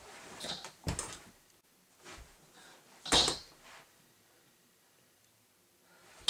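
Bodies scuffling and shifting on a wooden bunk bed: rustling with a few thumps and knocks, the loudest knock about three seconds in.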